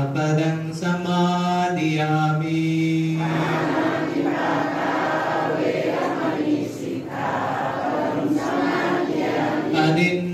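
Buddhist monk chanting into a microphone on steady, held notes. About three seconds in, the many voices of the congregation join and chant together in a dense chorus. A single voice leads again near the end.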